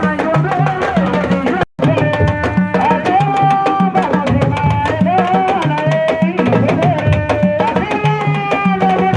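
Music with a fast drum rhythm and a singing voice over it, cut off for a moment about two seconds in.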